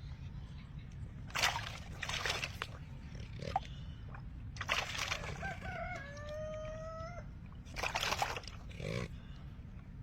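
Bird calls: several short, harsh squawks and one longer, clearer call lasting about a second and a half, over a steady low hum.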